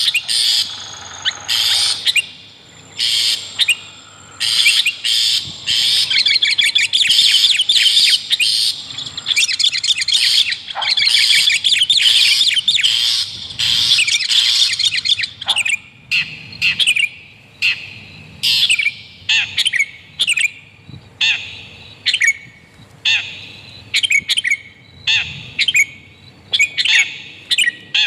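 Calls of long-tailed shrike mixed with sooty-headed bulbul, played as a bird-trapping lure: dense, rapid chattering for about the first fifteen seconds, then short repeated call phrases with brief gaps between them.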